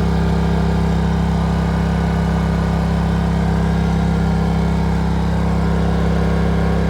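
Steady, loud machine drone of a camper air conditioner running on power from Honda EU2200i inverter generators: a constant low hum that does not change.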